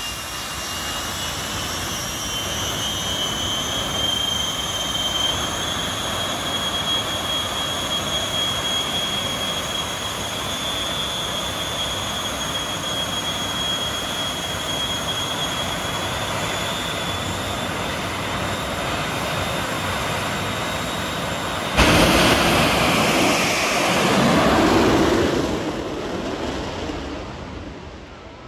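Shockwave jet truck's three jet engines running hard at the start line with a high, slightly rising whine. About 22 seconds in the sound jumps suddenly louder as the truck launches on afterburner, swells, then fades as it goes away down the track.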